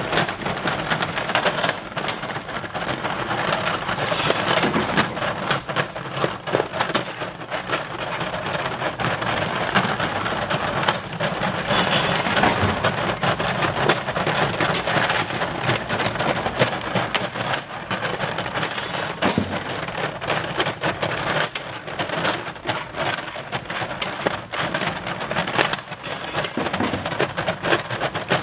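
Magnetic incline conveyor carrying small stamped steel parts up out of a steel hopper at slow speed: a steady, dense metallic clatter and clinking of the parts knocking against each other and the stainless slide.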